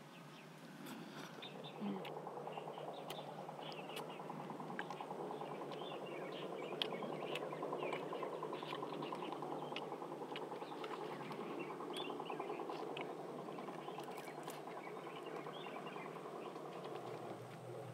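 Small crackles and crunches as the charred, armoured skin of a grilled pleco (Hypostomus punctatus) is pressed and broken open by hand, over a steady rough drone in the background, with faint bird chirps.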